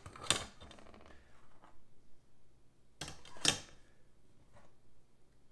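Two brief metal scrapes about three seconds apart as stainless-steel dhokla steamer trays are slid onto the arms of their stand.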